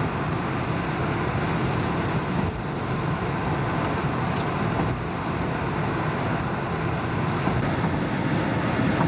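Steady road and wind noise inside a moving car.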